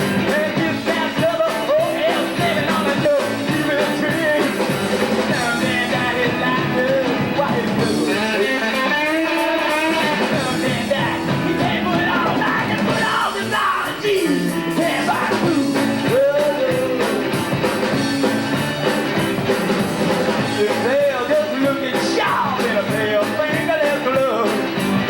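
Rock band playing live: electric guitar, bass, drums and keyboards, with a singer's voice at times.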